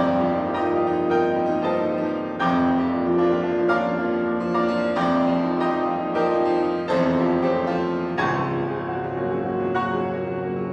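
Piano playing classical music: struck notes and chords ringing and decaying, with heavier accented chords every second or two.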